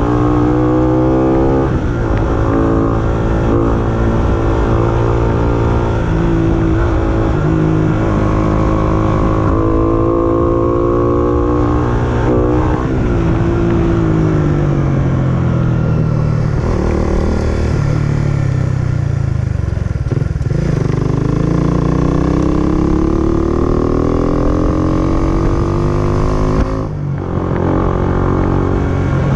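Motorcycle engine running while being ridden, heard from on the bike, its pitch rising and falling as the rider speeds up and slows down. About two-thirds through the pitch sinks slowly, then climbs again, and it drops out briefly near the end.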